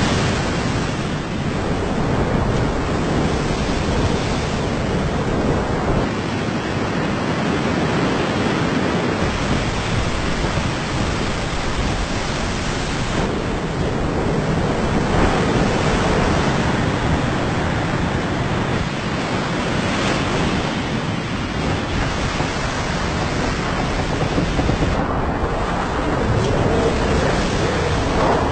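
Storm: a loud, steady rush of wind and water noise that swells a little now and then, with no separate claps or impacts.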